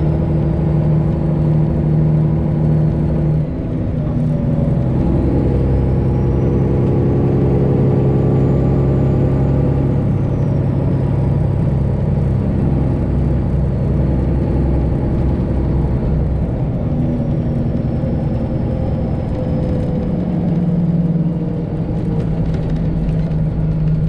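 Semi truck's Detroit Diesel 12.7-litre engine running steadily under way, with its note stepping to a new pitch a few times.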